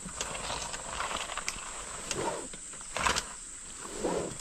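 Scuffing and a few sharp knocks as a stuck dirt bike is manhandled over rough ground, with two short strained grunts of effort.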